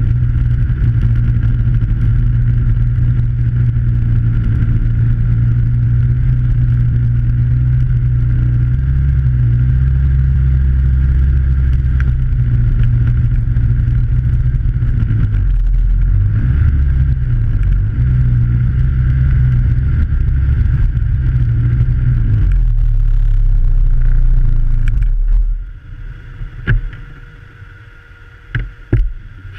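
Snowmobile engine running steadily as it travels, its pitch dipping and rising around the middle, then cutting off sharply about 25 seconds in, followed by a few faint knocks.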